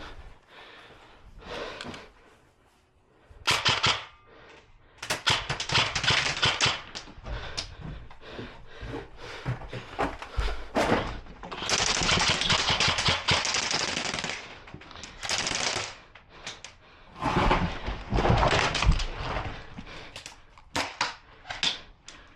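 Airsoft guns firing in rapid full-auto bursts, several short bursts and one long one of about three seconds near the middle, with quieter gaps between.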